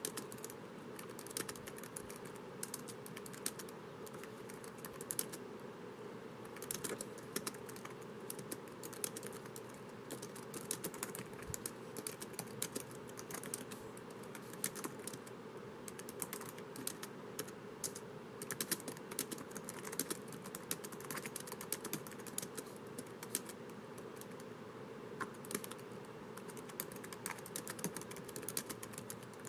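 Continuous typing on a laptop keyboard: rapid, irregular key clicks with occasional short pauses, over a faint steady background hum.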